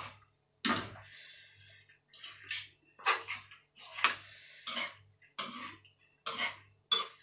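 Fork and spoon clinking and scraping against a plate while eating, in short strokes about once a second.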